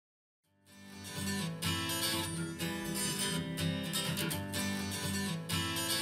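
Pop song intro with strummed acoustic guitar, played back through a pair of Presonus Eris E3.5 studio monitors and picked up by a microphone in the room. It starts about half a second in, after silence, and reaches full level within a second.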